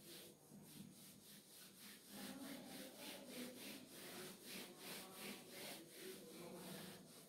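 Whiteboard duster wiped quickly back and forth over a whiteboard: faint, even rubbing at about three strokes a second.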